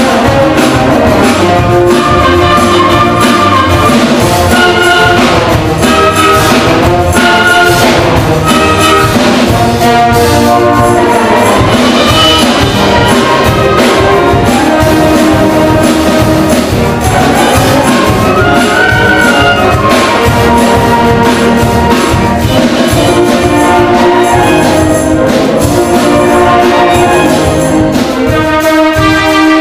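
A high school wind band playing, with brass and woodwinds carrying the tune over a steady beat.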